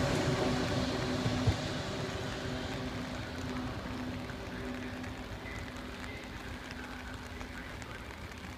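ETR 500 Frecciarossa high-speed electric train running away after passing, its rumble fading steadily as it recedes, with a steady low hum underneath. A single short knock about one and a half seconds in.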